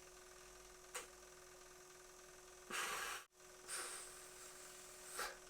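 A man's breaths or sighs while thinking, a few seconds apart, the loudest a little under halfway through, over a steady faint hum; a sharp click about a second in.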